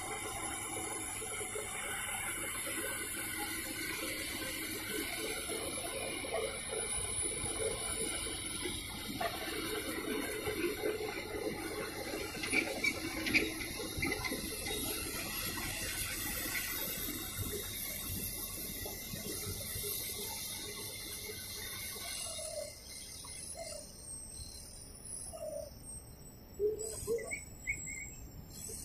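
Dragline excavator machinery running at a distance: a steady mechanical hum with a faint high whine. It quietens about 22 seconds in, leaving a few short, separate sounds.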